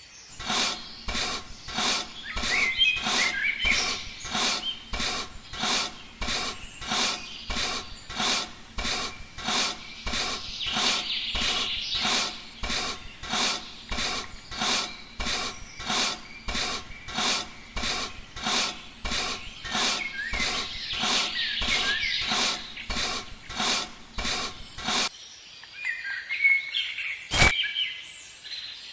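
Steady, rhythmic rubbing strokes, about three every two seconds, that stop near the end; birds chirp behind them.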